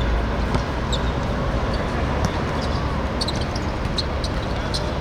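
Steady outdoor background noise with a heavy low rumble, over which scattered faint sharp ticks and knocks sound.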